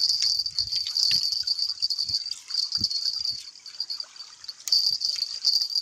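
Insects chirring in a steady high-pitched buzz, which goes broken and stuttering from about two and a half seconds in, then runs steady again near the end. A few faint low knocks sound underneath.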